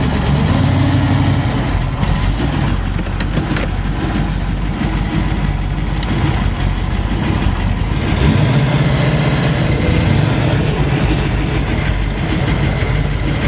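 Car engine running steadily, heard from inside the cabin while the car drives slowly over a dirt track. The engine note picks up about eight seconds in, and there are a few sharp clicks about three seconds in.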